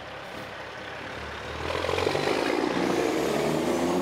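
Semi-truck's diesel engine and tyres driving past close by, getting louder about halfway through as the tractor and its trailer go by.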